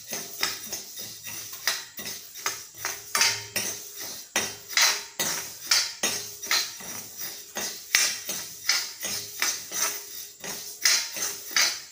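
Steel spoon stirring and scraping coriander seeds around an iron kadai as they dry-roast, the metal scraping and the seeds rattling in quick, regular strokes, about two to three a second.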